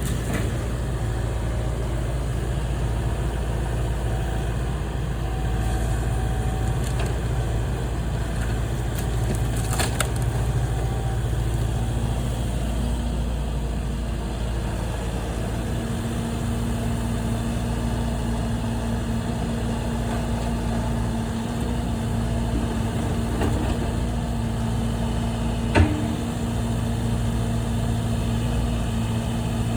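Engine running steadily with a low hum, with one sharp bang about three quarters of the way through.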